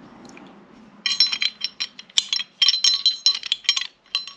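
Metal parts of a Glock 17 pistol clinking and rattling as it is put back together, a quick run of small metallic clicks with a ringing edge starting about a second in.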